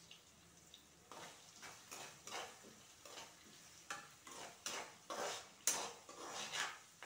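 Metal perforated ladle stirring and scraping against a kadai of frying onions, seeds and curry leaves: a run of irregular scrapes starting about a second in, the loudest near the end.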